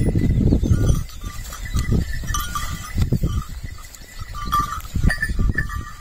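A pair of bullocks pulling a wooden plough through soil: low thuds and scuffs of hooves and ploughshare, loudest as a rumbling first second, with light ringing clinks that recur throughout.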